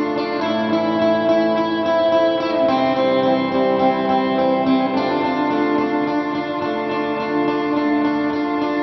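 Background music led by guitar, with the chords changing about every two and a half seconds.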